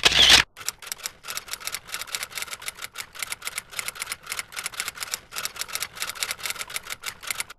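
Typewriter keystroke sound effect: rapid sharp key clicks, several a second, typing out on-screen text, after a short loud burst at the start.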